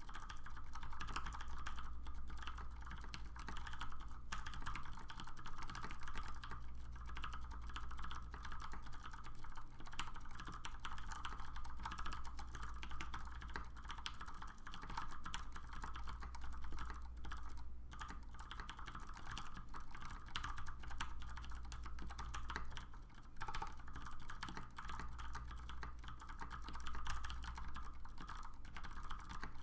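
Continuous, fast typing on an LZ Mini MX mechanical keyboard: Cherry MX Clear tactile switches with 65 g springs, lubed with Krytox 205/105, under BSP PBT dye-sub keycaps.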